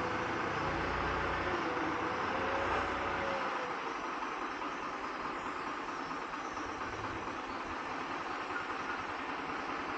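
Steady hiss of a butane soldering iron burning while a piece of MIG wire is heated and pushed into ABS plastic, with a low engine-like hum underneath that fades out after about three and a half seconds.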